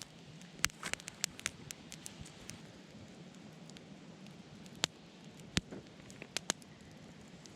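Wood fire crackling: irregular sharp pops and snaps of burning firewood over a soft hiss, with a few louder snaps about a second in and near the five-second mark.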